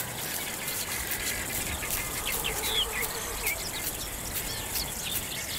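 Many short, high bird chirps over a faint background of insect ticking.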